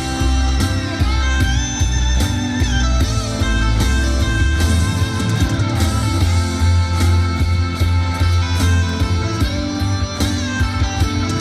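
Instrumental interlude of a live ballad: guitar played over a backing track with steady bass and a drum beat, with no singing.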